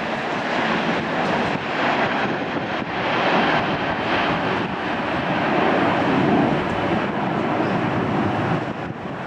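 Jet airliner engines at takeoff power, a steady rushing noise with no clear tone that swells a little through the middle and eases near the end.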